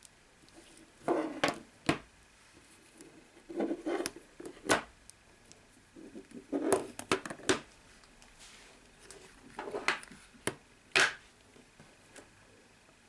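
Handling noise: four short clusters of taps, clicks and knocks on a hard surface, a few seconds apart.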